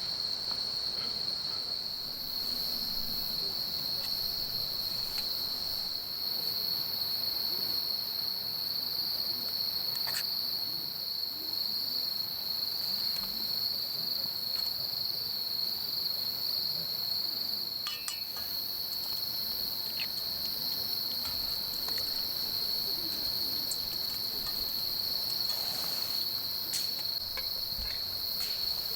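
Crickets trilling without pause as one steady high note, with a few faint clicks now and then.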